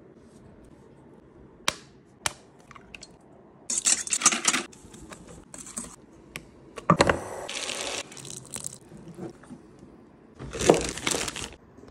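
Pancake batter being beaten in a stainless steel bowl: short bursts of stirring and scraping against the metal, with a few sharp clicks.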